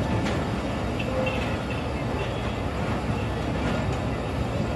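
Passenger train rolling out of a station, heard from an open coach doorway: a steady rumble of wheels on the rails with a few faint clicks and squeaks.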